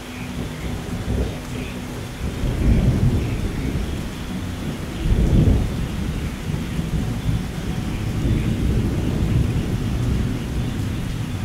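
Steady rain with low rolling thunder, the rumble swelling about two and a half seconds in and again around five seconds in.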